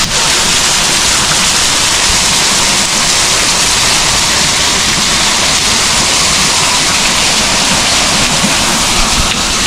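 Water pouring off a grist mill's overshot waterwheel and splashing into the tailrace below: a loud, steady rush.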